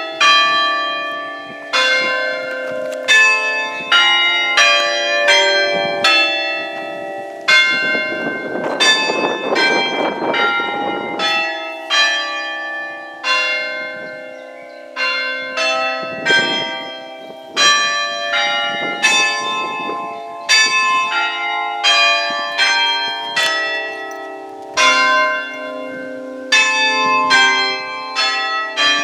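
Church bells chimed by hand on an Ellacombe apparatus, with hammers striking six bells in turn; two of the set's eight bells are broken. There are about one to two strikes a second, each ringing on and overlapping the next.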